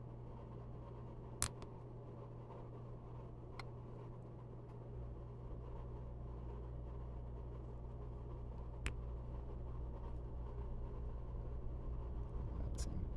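A small plastic action figure being handled and posed, giving a few faint sharp clicks, over a steady low hum.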